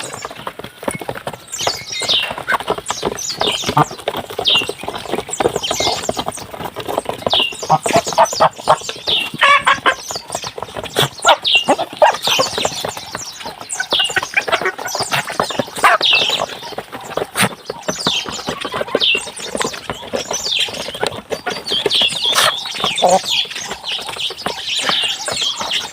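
Chickens clucking and peeping while being fed, with many short high calls and a steady patter of sharp taps.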